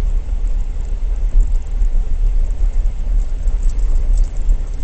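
Jeep driving on a dirt forest road, heard inside the cabin: a steady low rumble of engine and tyres, with a few faint rattles near the end.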